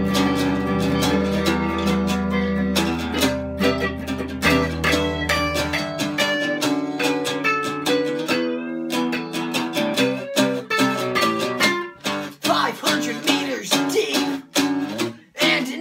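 Two guitars playing an instrumental passage of picked notes and strummed chords, over a low note held for the first six seconds.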